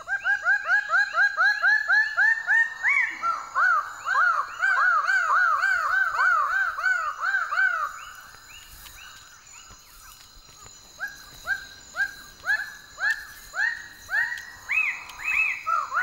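Male raggiana birds-of-paradise giving their courtship display calls: fast runs of loud, arched calls, about four or five a second, several birds overlapping. The calling eases off about halfway through and builds again near the end.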